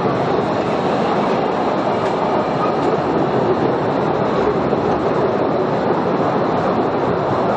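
Small electric cave train running along its track, heard from aboard: a steady noise of wheels on the rails and rattling carriages.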